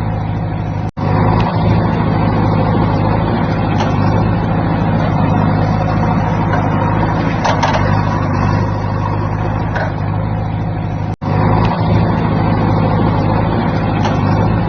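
Heavy construction machinery, a JCB and dump trucks, running steadily with a low engine drone, broken by two abrupt momentary cuts, about a second in and about eleven seconds in.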